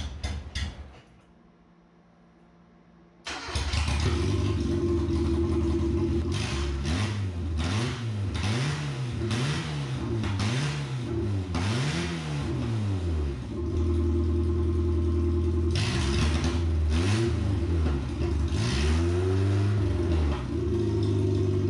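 Starter cranking the small four-cylinder engine in the second end of a double-ended Ford Festiva race car. After a short pause it catches about three seconds in and runs very loud, the throttle blipped up and down over and over.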